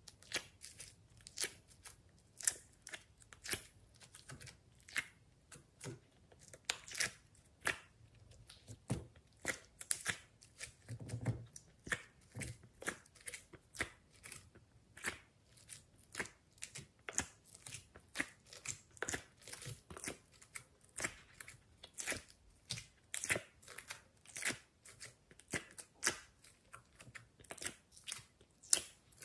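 Slime being pushed out of the cells of a silicone mold and pressed into a glass tray: a steady run of short clicks and pops, roughly two a second, with a soft low thump about eleven seconds in.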